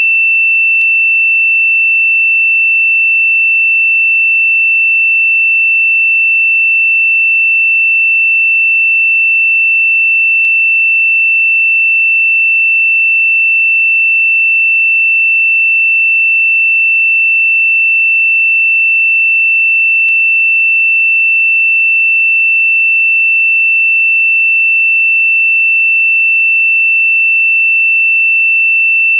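A synthesized pure sine tone held at one steady high pitch, the meditation 'frequency' itself, with no change in pitch or loudness. Faint clicks come about every ten seconds.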